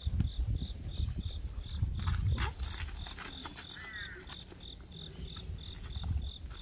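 Cricket chirping steadily at about three high chirps a second, over low rumbling noise. A few clicks come about two seconds in, and a brief high squeak near four seconds in.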